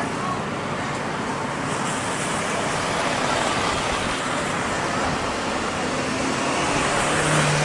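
Jet engine noise of a Japan Airlines Boeing 787-8 Dreamliner rolling out on the runway after touchdown: a steady rushing sound, swelling slightly near the end.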